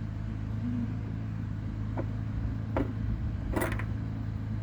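Small plastic clicks and knocks, three times, the last the loudest, as a bulb socket is worked against the plastic light housing while its locating notches are felt for. A steady low hum runs underneath.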